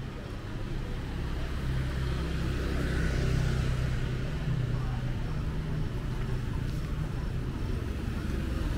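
Engines of slow-moving road vehicles close by, a car and a motor scooter, making a low hum that grows louder over the first three seconds and then holds steady.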